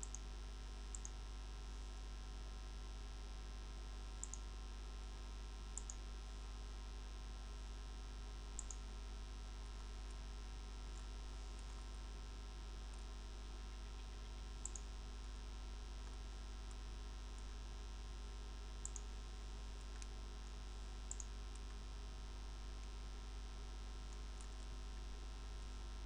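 Steady low mains hum with about seven short computer-mouse clicks spread unevenly across it.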